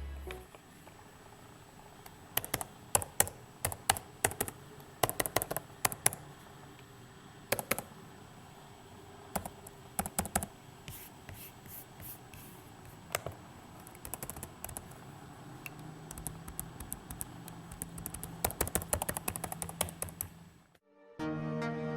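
Typing on the Acer Aspire V15 Nitro laptop's keyboard: bursts of quick key clicks separated by short pauses, stopping near the end.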